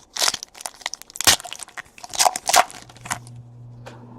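Trading-card pack wrappers being torn open and crinkled, in a run of sharp rips and crackles. A low steady hum comes in about three seconds in.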